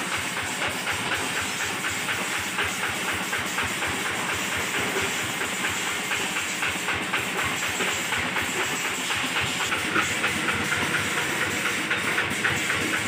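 Single-cylinder diesel engine of a two-wheel hand tractor running steadily, with a fast, even clatter.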